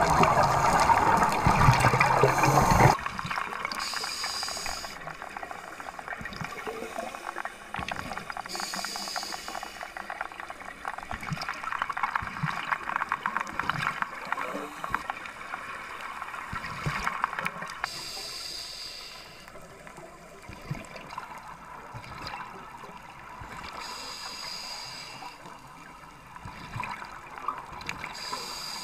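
Underwater scuba ambience: exhaled air bubbling and gurgling out of divers' regulators, with a brighter bubbling surge every few seconds in time with breathing. A louder sound, likely the end of the backing music, cuts off about three seconds in.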